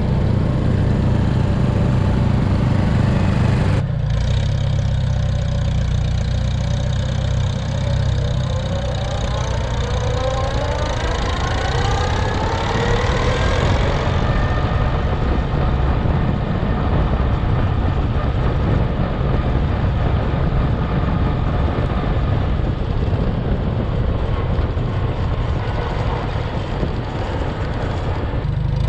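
Small antique tractor's engine running close to the microphone as the tractor is driven. The sound changes abruptly about four seconds in, then a whine climbs in pitch for several seconds before settling to a steady run.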